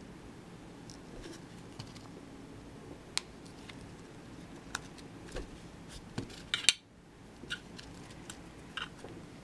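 Scattered small clicks and taps of fingers and a small screwdriver handling the parts of an opened iPhone 4 as its battery connector is pressed down, with a louder double click about two-thirds of the way in.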